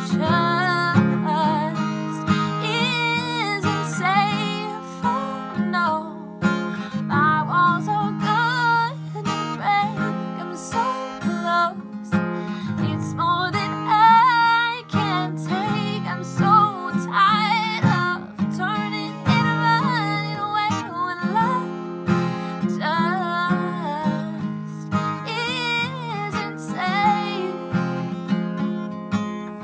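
A woman singing a melody while strumming chords on a cutaway acoustic guitar.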